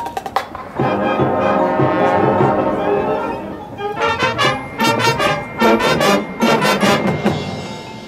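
Marching band brass section with drums. The brass holds a full chord, then about a second later plays a run of short, loud, punched chords with sharp percussion hits, easing off near the end.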